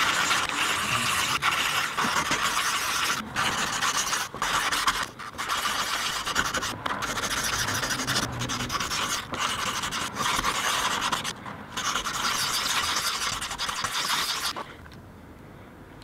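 Fine 280-grit sandpaper rubbed back and forth on the oxidized diaphragm disc of an old FIAMM air horn in wet sanding, a steady rasping with a few brief pauses. The sanding stops about a second before the end.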